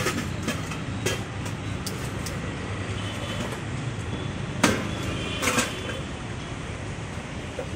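Steady low rumble of a busy street stall, with a few sharp metallic clinks of steel cooking utensils against the griddles and pots, the loudest about four and a half seconds in.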